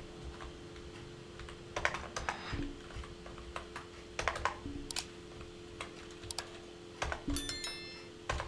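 Typing on a computer keyboard: scattered, irregular key clicks with pauses between them, over a steady low hum.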